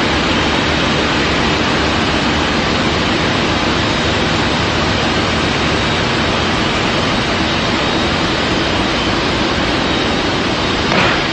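Loud, steady machinery noise, a mix of hum and hiss with no beat, with a brief louder clatter near the end.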